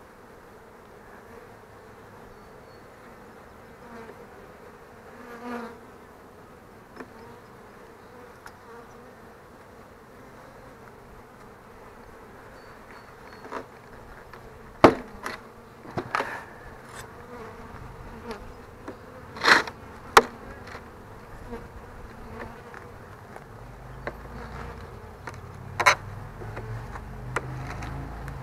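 Honeybees buzzing steadily around an opened hive, with several sharp knocks of wooden hive boxes and frames being handled in the second half.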